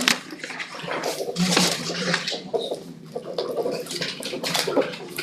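Sheets of paper rustling and shuffling on a meeting table, in irregular bursts.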